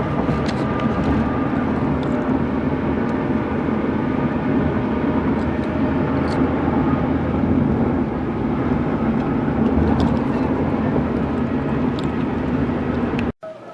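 Steady road and engine noise of a moving car heard from inside the cabin, an even rumble and hiss that cuts off suddenly near the end.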